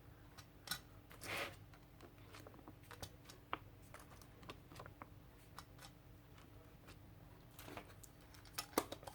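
Scattered faint taps and clicks of a rubber stamp being inked on an ink pad and pressed onto paper, with a brief rustle of paper.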